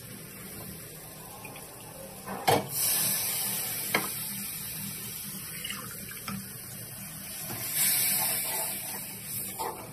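Spice paste frying in oil in an aluminium pot: a steady sizzling hiss that swells loudly twice, about two and a half seconds in and again near eight seconds. A metal spoon knocks against the pot as it is stirred, once about two and a half seconds in and again about four seconds in.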